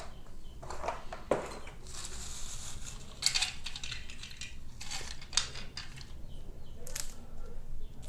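Plastic packaging crinkling and rustling, with scattered clicks and knocks of plastic toy train pieces being handled and set down.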